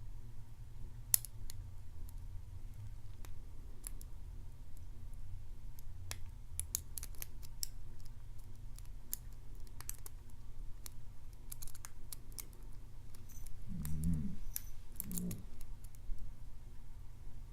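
Lock pick and tension wrench working the pins of a Morris LOTO padlock's 5-pin brass cylinder: scattered small metallic clicks and scrapes at an irregular pace over a steady low hum. Two short low sounds come near the end.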